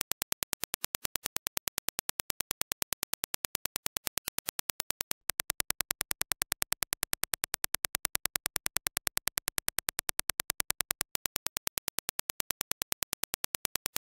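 A rapid, even train of sharp test clicks (Dirac impulses). After a brief gap about five seconds in, the clicks come slightly louder as reproduced by the Hifiman Ananda Stealth planar-magnetic headphones. After another gap about eleven seconds in, the clean reference impulses return.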